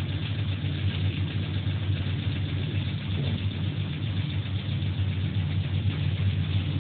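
Machinery running with a steady, unchanging low hum and an even rough noise over it.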